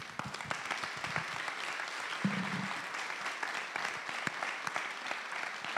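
Audience applauding steadily, right after the speaker's closing thanks.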